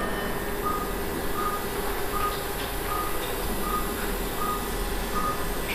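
Operating-room patient monitor beeping at one steady pitch, about once every three-quarters of a second (about 80 a minute, the pulse-oximeter heartbeat tone), over a steady hum of theatre equipment.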